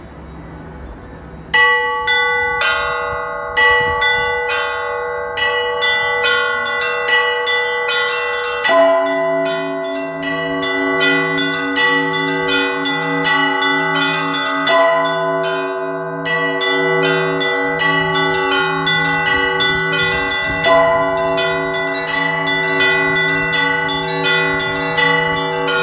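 Russian church bells rung by a single bell ringer. The small bells are struck in a quick, rhythmic pattern starting about a second and a half in. A larger bell joins at about nine seconds and is struck roughly every six seconds, its low hum pulsing underneath.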